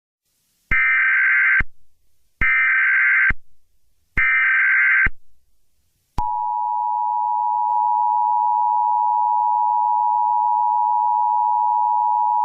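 Emergency Alert System alert signal: three short bursts of data tones (the SAME header), each about a second long with a second's gap between them. After a short pause, about six seconds in, the steady two-tone attention signal begins and keeps sounding. It announces an emergency broadcast message.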